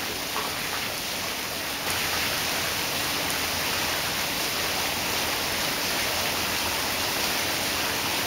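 Dry ice fizzing and bubbling in water poured over it from a jug: a steady, even hiss like rain, a little louder from about two seconds in.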